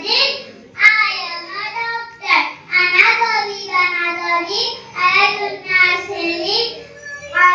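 A young boy's voice singing solo into a microphone, in held, gliding phrases with short breaks between them.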